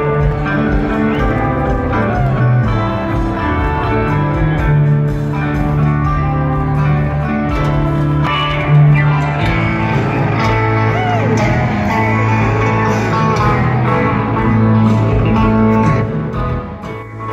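Live rock band playing loud, with guitar lines over long held bass notes, heard from within the crowd at the concert.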